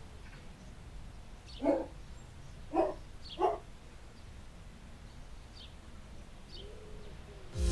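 A dog barking three short times, about a second apart, followed by a couple of fainter, higher yips.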